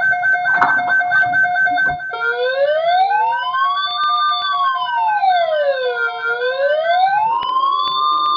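Emergency Alert System header data bursts on NOAA Weather Radio: a buzzy stream of rapidly alternating tones. From about two seconds in, an electronic siren slowly sweeps up and down over it. About seven seconds in, the data stops and the steady single-pitch Weather Radio alert tone begins.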